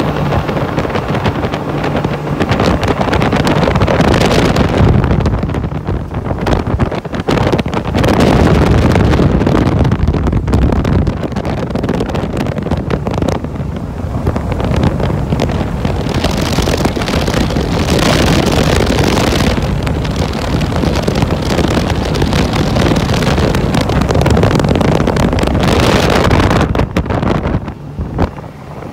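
Twin Honda BF225 V6 four-stroke outboards running at speed under a planing boat, with rushing water and heavy wind buffeting on the microphone that rises and falls in gusts. The rush drops briefly near the end.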